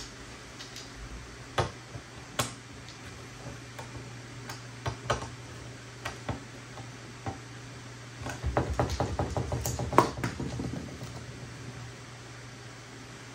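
Precision screwdriver working small screws out of an aluminium G-Drive hard-drive enclosure: scattered clicks and taps of the metal bit and screws against the case, then a quick run of light clicks about eight seconds in, ending with one sharper click.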